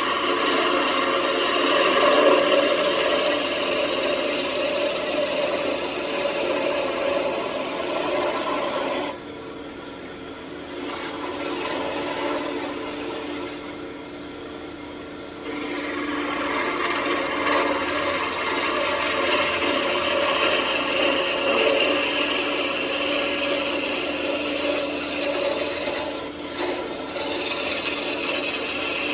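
Turning tool cutting a spinning walnut blank on a wood lathe: a steady scraping hiss over the hum of the lathe. The tool comes off the wood twice, about 9 and 14 seconds in, and each time only the quieter lathe is left for a second or two.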